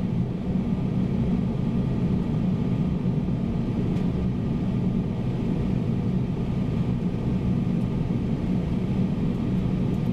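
Steady, low-pitched rush of airflow and engine noise inside the flight deck of a Boeing 767-300ER on final approach.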